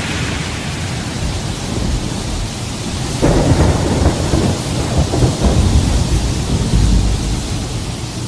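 Sound effect of steady heavy rain, with a long roll of thunder rumbling in about three seconds in and easing off near the end.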